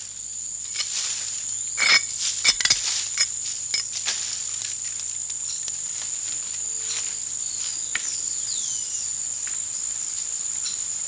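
Dry banana leaves crackling and rustling as they are pulled aside, in a cluster of short strokes in the first few seconds and sparser ones after. Over it runs a steady high insect drone, and a few quick falling chirps come about eight seconds in.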